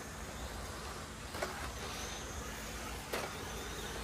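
1/10-scale electric RC rally cars running on a dry dirt track: a steady motor and tyre noise, with two sharp clicks about a second and a half and three seconds in.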